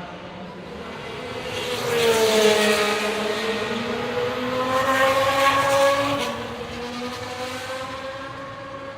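Historic Formula 1 racing car engine at high revs passing by, swelling to its loudest about two seconds in, holding through a slow rise in pitch near its peak around five to six seconds, then fading away.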